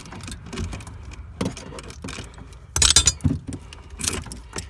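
Metal parts clicking, clanking and jangling as battery cables and clamps are handled and disconnected, with the loudest jangle about three seconds in and a clank near the end.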